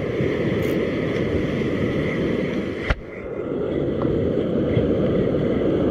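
Sea surf washing over shore rocks with wind on the microphone, a steady rushing noise, with one sharp click about three seconds in.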